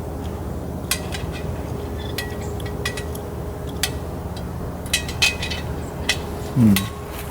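Light metallic clinks and taps as the rib-rack pieces are fitted into the porcelain-enameled grill insert, about a dozen irregular clicks.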